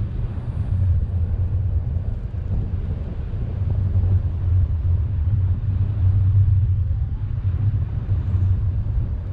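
Wind buffeting the microphone in flight, a steady low rumble that swells and eases.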